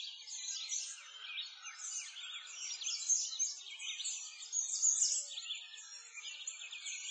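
A dense chorus of songbirds, many short chirps and trills overlapping without a break.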